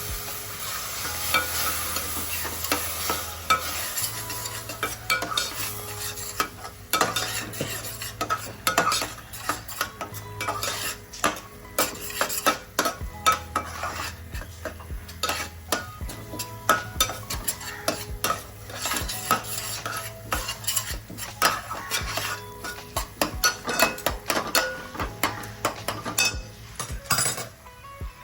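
Spatula stirring and scraping an onion-tomato masala as it fries in oil in a pan, with many quick clicks of the spatula on the pan over a sizzle. The sizzle is strongest in the first seconds and thins out as the chilli powder and turmeric roast with a splash of water added to keep them from burning.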